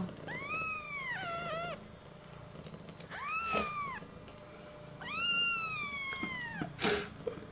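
Two-week-old kitten mewing: three high, drawn-out mews, each rising and then falling in pitch, the last the longest. A single sharp click comes near the end.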